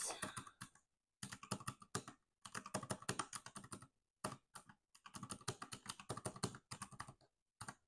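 Plastic keys of a small round-key desk calculator tapped in several quick runs of clicks with short pauses, struck with long fingernails, as figures are entered and added up.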